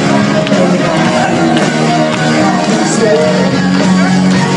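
Live rock band playing loudly, with electric guitars, drums, keyboard and a lead singer, heard from within the audience in a large hall.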